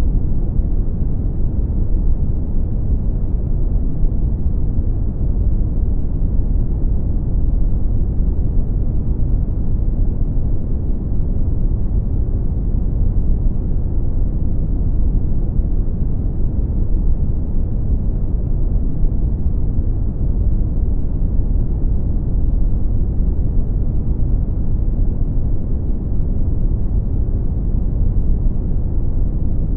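Brown noise: a steady, deep rumbling hiss, heaviest in the bass and dull in the treble, with no change throughout.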